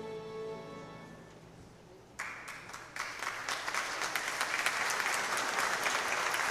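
The last sung note of a song fades out, and about two seconds in an audience breaks into applause that quickly swells and keeps going.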